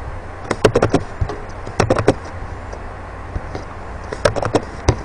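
Computer mouse clicking in three quick runs of sharp clicks while folders are opened, over a steady low hum.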